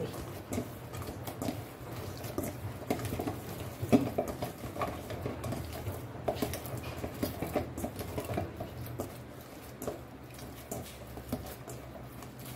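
Hands kneading soft, oiled naan dough in a stainless steel bowl: irregular squishing and slapping against the metal, over a steady low hum.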